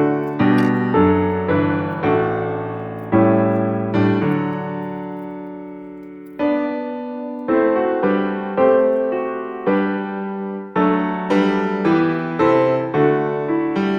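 Background piano music: a slow melody of struck notes and chords, each fading away, with one long chord left to die away near the middle.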